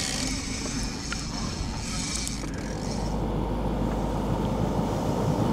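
A boat's engine running low and steady under wind and water noise, with a higher hiss over the first couple of seconds that fades away.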